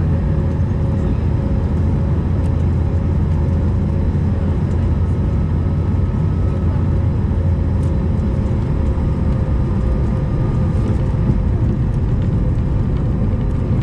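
Airbus A220-300 cabin noise from a window seat over the wing during landing: a steady low rumble with a steady whine from its Pratt & Whitney geared turbofan engines, running on evenly through touchdown and the start of the landing roll.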